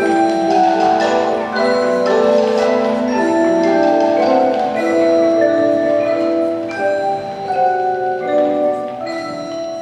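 Percussion ensemble playing, led by mallet keyboards such as marimba and vibraphone, with sustained rolled chords and a few sharp accents. The sound eases off near the end as the notes ring out.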